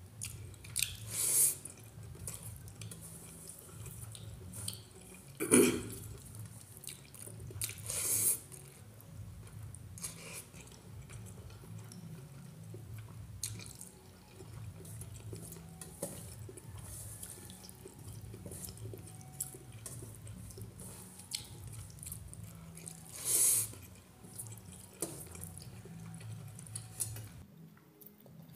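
Close-up sounds of eating by hand: fingers squishing and mixing rice in its starchy water on a steel plate, and wet chewing and mouth smacks, with a few louder wet smacks spread through. A low steady hum runs underneath.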